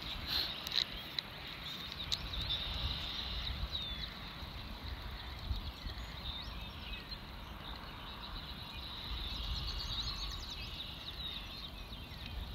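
Faint outdoor ambience: an uneven low wind rumble on the microphone with scattered faint bird chirps.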